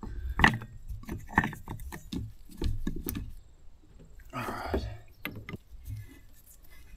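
Handling noise from a chainsaw powerhead being worked on by hand: irregular clicks and knocks of plastic and metal parts, and a brief rasping rustle about four and a half seconds in.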